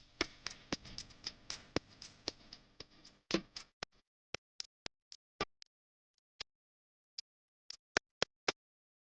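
A series of short, sharp clicks and taps at an uneven pace, over a faint low hum that cuts out about three seconds in; after that the clicks come singly in dead silence.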